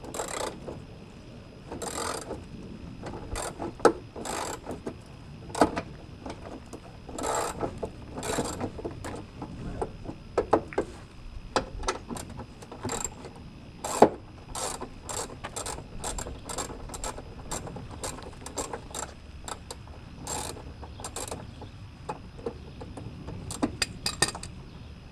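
Hand socket ratchet clicking in irregular runs during work under a car's hood, with a few sharper knocks of metal tools or parts.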